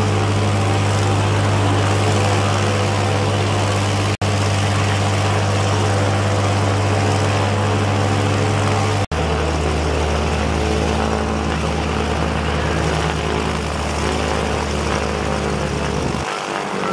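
The twin de Havilland Gipsy Queen piston engines of a de Havilland Devon running steadily on a ground engine run, propellers turning, with the propeller beat mixed in. The sound drops out very briefly twice at edits, and after the second one, about nine seconds in, the engine note is a little lower.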